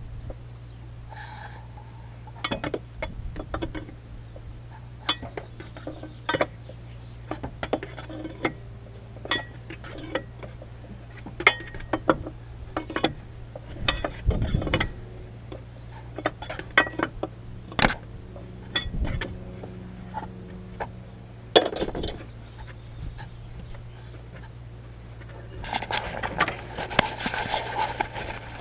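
Metal spanners clinking and tapping against the Land Rover Defender TD5's engine fan and its nut as the fan is undone with special fan tools: scattered sharp clinks over a steady low hum. A burst of rustling comes near the end.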